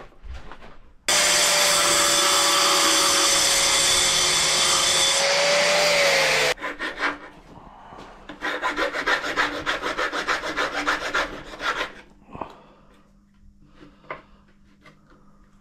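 An angle grinder cuts a slot in a strip of aluminium for about five seconds at a steady pitch, sagging slightly just before it stops abruptly. After that, a hand file rasps at the cut aluminium in quick back-and-forth strokes, with a few more strokes near the end.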